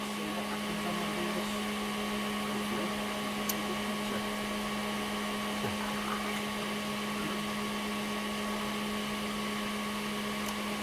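Steady electrical hum of running lab equipment: a strong low drone with fainter higher tones held underneath it, and a single faint click about three and a half seconds in.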